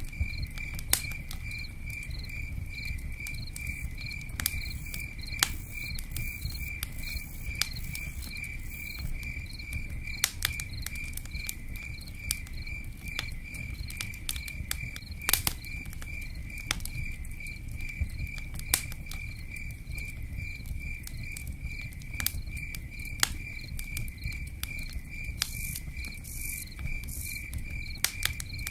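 Crickets chirping in a steady, even pulse, a few chirps a second, over a low steady rumble, with scattered sharp pops and crackles from a campfire.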